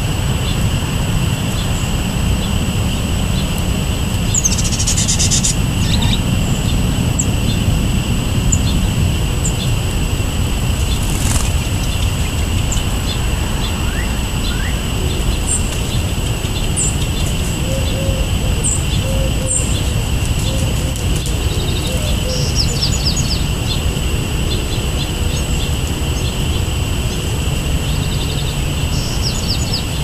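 Small songbirds give short high chirps and call notes in scattered bursts, over a steady low outdoor rumble.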